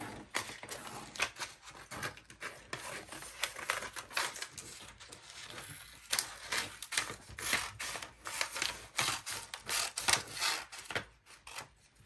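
Scissors snipping through paper in irregular snips, a few a second, with paper rustling: a child cutting along printed lines on a worksheet.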